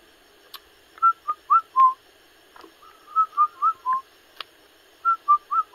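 A bird singing a phrase of four or five clear whistled notes, repeated three times about two seconds apart.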